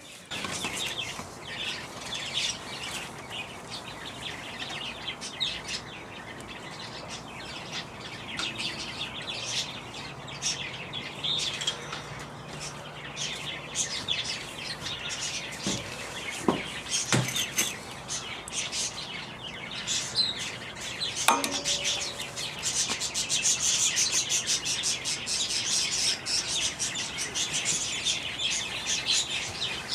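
Birds chirping repeatedly, with a fast, dense run of notes from about two-thirds of the way through. A couple of sharp knocks sound about halfway.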